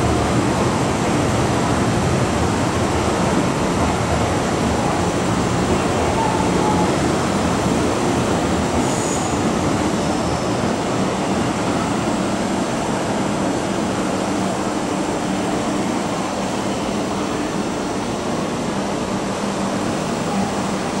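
Hong Kong MTR Metro-Cammell M-Train electric multiple unit pulling out of the station and running off into the tunnel, heard through the platform screen doors. Its steady rumble eases off slightly as it goes.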